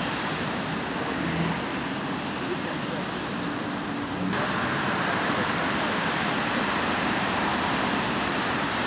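Steady outdoor background hiss that jumps abruptly to a brighter, slightly louder hiss about four seconds in.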